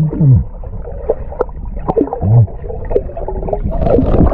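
Muffled underwater gurgling and sloshing of pool water, heard through a microphone dunked below the surface, with scattered knocks and low wavering tones.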